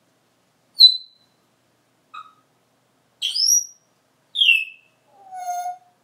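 African grey parrot whistling a string of five short calls: a sharp high whistle about a second in, a faint chirp, then a rising whistle, a falling whistle, and a lower held note near the end.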